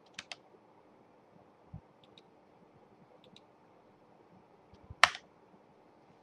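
Computer mouse and keyboard clicks: a quick double click near the start, a few faint clicks, and one loud, sharp click about five seconds in.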